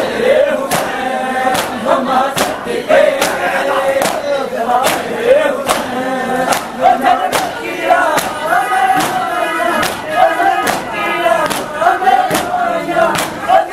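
A crowd of men chanting in unison over a steady beat of hand slaps struck together, about one every 0.8 seconds. This is typical of matam, in which mourners beat their chests to a chant.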